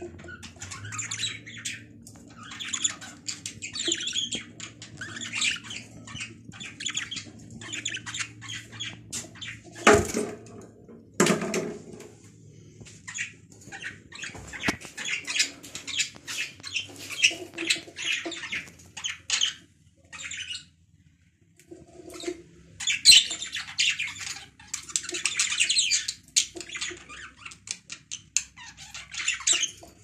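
Budgerigars chattering and squawking in a rapid run of short, high-pitched calls. Two sharp knocks come about a third of the way in.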